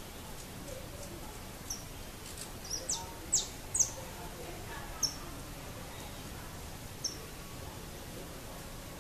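Saffron finch giving short, high chip calls: a quick cluster of four or five about three seconds in, then single chips a couple of seconds apart, over steady background noise.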